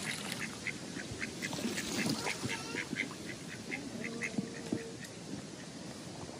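Mallard ducks quacking: a quick run of short calls, about three or four a second, that stops about two-thirds of the way through.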